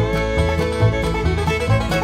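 Background music: a bluegrass-style tune led by a picked banjo over a steady bass beat.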